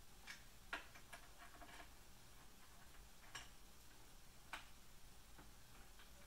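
Faint, scattered light clicks and ticks of small metal parts being handled as screws on a 3018 CNC router kit's aluminium frame and rod mounts are tightened by hand, the loudest click about a second in.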